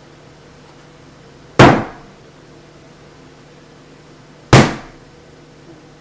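Two loud, sharp bangs about three seconds apart, each dying away quickly, over a faint steady low hum.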